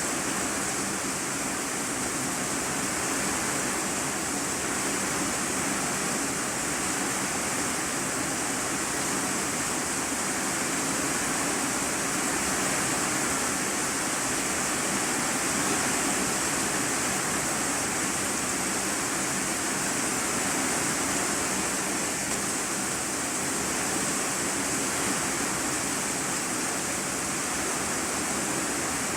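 Heavy rain falling on an iron-sheet roof, heard from inside the room beneath it: a steady, dense hiss that doesn't let up.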